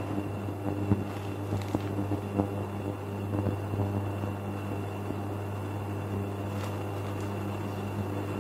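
Steady low hum with a faint high whine running under it, and a few soft ticks in the first couple of seconds.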